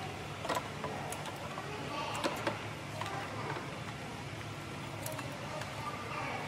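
Scattered light clicks and knocks of parts being handled on top of a Toyota 2AR-FE engine as the valve cover is gripped and moved by gloved hands, over a steady low hum. The clicks come in a small cluster about two seconds in and again around five seconds.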